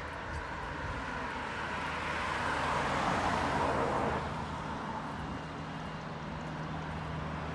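A car driving past on the street, its road noise swelling to a peak about three seconds in and then fading, over a low steady hum.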